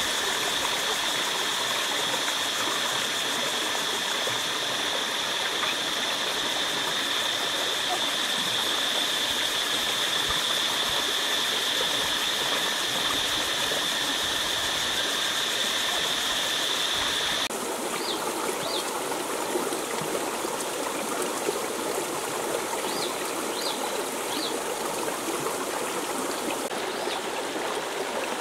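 River water running steadily, with a steady high-pitched drone over it that cuts off suddenly a little past halfway. A few short, faint chirps follow.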